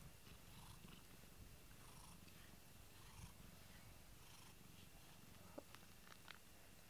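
Domestic cat purring, a faint steady rumble, with a few light clicks near the end.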